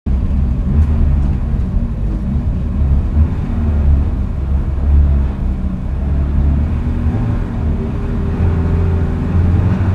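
Renault Clio Sport 182's 2.0-litre four-cylinder engine idling, heard from inside the cabin as a steady, low-pitched drone. Other race cars are idling on the grid around it.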